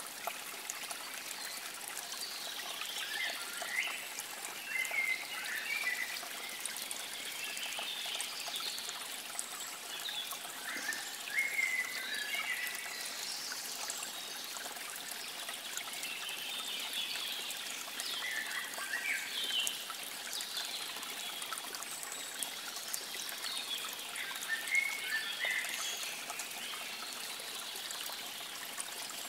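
Water trickling steadily, like a small stream, with short gurgles coming in clusters every few seconds.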